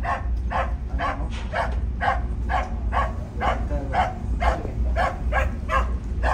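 A dog barking in a rapid, even run, about three barks a second, over a steady low rumble.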